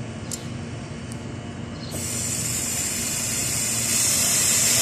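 Pressurized gas venting with a strong hiss from a cold room refrigeration system, bled off after a leak test. It starts suddenly about two seconds in over a steady low machine hum and grows steadily louder.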